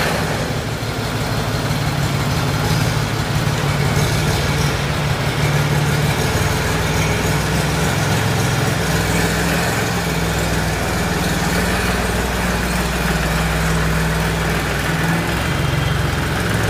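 Force Orchard 25 DLX tractor's three-cylinder, four-stroke direct-injection diesel engine idling, a steady engine note.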